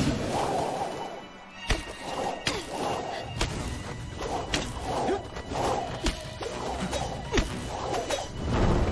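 Fight-scene sound effects: repeated whooshes and several sharp hits as vine-like tendrils lash and fighters strike, over dramatic background music.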